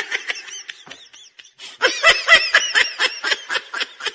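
Laughter in quick repeated bursts, several a second, high-pitched and chirpy.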